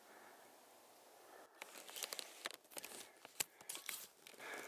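Faint rustling and sharp clicks of a handheld camera being handled and turned around, starting about a second and a half in after a quiet hiss, with one louder click a little past the middle.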